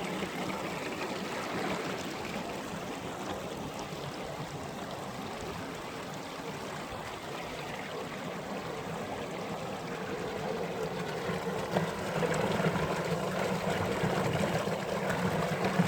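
Mountain stream running steadily, a little louder near the end.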